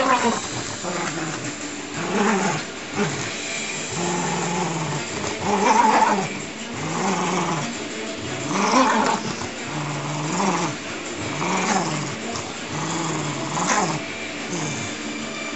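Dachshund growling in play while tugging on a stuffed toy: a steady run of growls, each rising and falling, about one a second.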